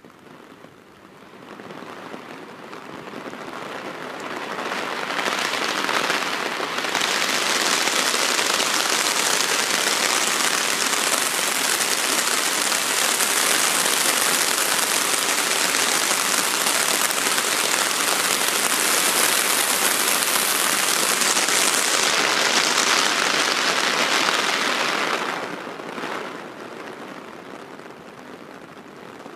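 Heavy tropical downpour hissing on the ground and leaves. It builds over the first few seconds, pours at full strength through the middle, then eases off a few seconds before the end.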